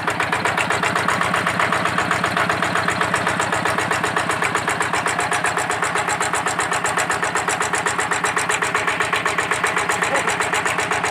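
Yanmar hand tractor's single-cylinder diesel engine running steadily at a low, standard throttle setting just after a crank start, a rapid even putter of about seven or eight beats a second.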